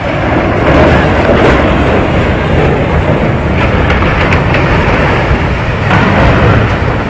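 A ship's steel bow grinding into the hull of a partly scrapped ship: a loud, continuous heavy rumble of colliding steel.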